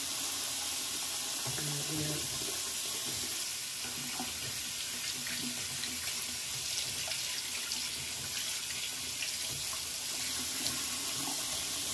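Bathroom sink tap running steadily, the water splashing as a facial roller is rinsed under it.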